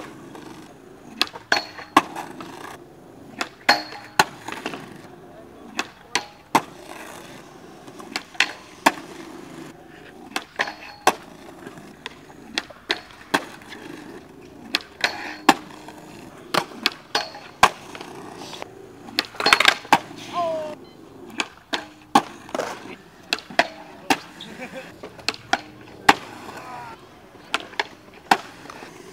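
Skateboards on concrete: wheels rolling steadily, with many sharp clacks from tails popping and boards landing and slapping the ground.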